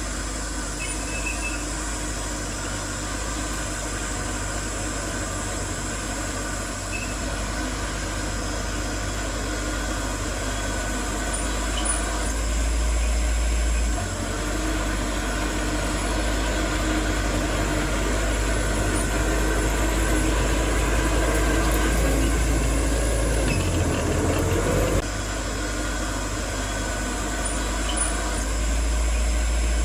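Heavy diesel earthmoving machinery running steadily with a deep engine rumble. The engine sound shifts abruptly a couple of times, and rises briefly in pitch shortly before the second shift.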